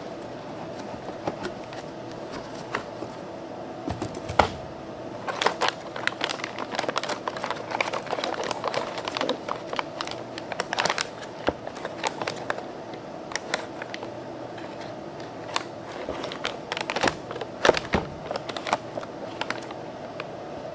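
Packaging being handled as a box is opened: irregular crinkling, rustling and sharp clicks and knocks, over a steady background hum.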